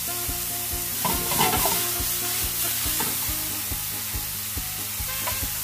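Sliced button mushrooms sizzling as they stir-fry in a nonstick frying pan, being dried out over brisk heat. About a second in, a wooden spoon stirs and tosses them for a moment.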